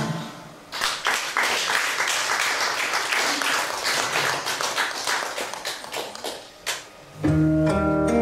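A struck chord on an acoustic guitar, then an audience applauding for about six seconds, dying away; near the end the acoustic guitar starts playing again.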